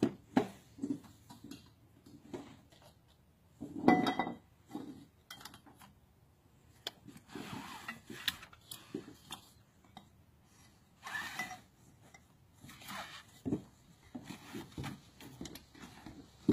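Scattered rustling and irregular light knocks of bags and gear being handled on a wooden boardwalk, with a louder cluster of knocks about four seconds in.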